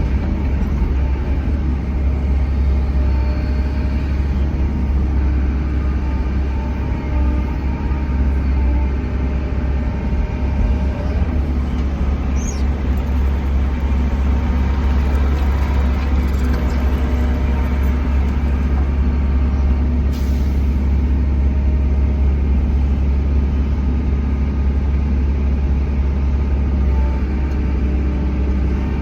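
Bobcat E145 excavator's diesel engine running steadily at working speed, a deep even drone with a faint brief squeak about twelve seconds in.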